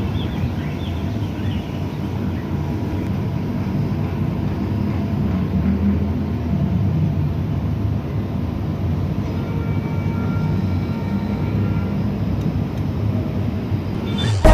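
Steady low rumble, with a few faint high chirps in the first second.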